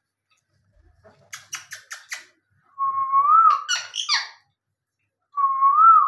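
Rose-ringed parakeet calling: a quick run of about five short sharp chirps, then a harsh squawk, with two steady whistled notes that rise slightly at the end.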